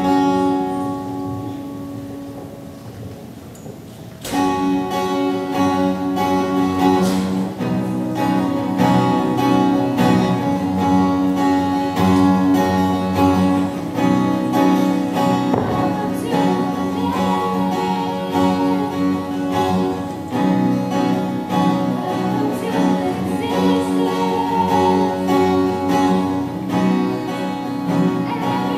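Teenage vocal group singing live with acoustic guitar accompaniment. It opens with a single chord that rings and fades for about four seconds, then the full song comes in and carries on steadily.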